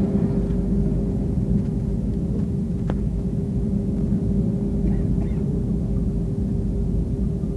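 Steady low rumble of a jet airliner taxiing, heard inside the cabin, with a constant hum over it. There is one faint click about three seconds in.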